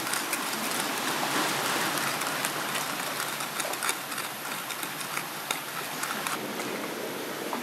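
Wooden stick pounding and grinding chopped chilies in a coconut-shell bowl, giving irregular soft knocks and clicks, over a steady rushing background noise.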